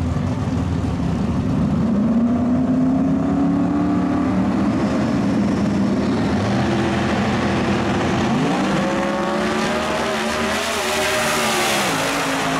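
Two drag race cars, one the twin-turbocharged Megatron Mustang, running loud at the starting line with their engine pitch held and wavering. About eight seconds in they launch and accelerate hard, the engine notes climbing in rising sweeps.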